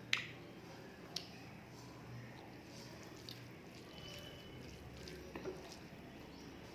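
Faint wet eating sounds, chewing and squelching mouthfuls of rice and curry, with two sharp clicks, one just after the start and one about a second in.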